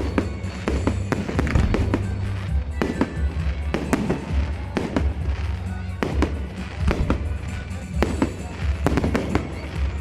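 Fireworks shells bursting in a salute, sharp bangs about one or two a second, over steady music.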